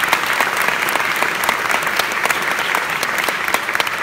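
Audience applauding loudly: many hands clapping in a dense, steady spread of claps.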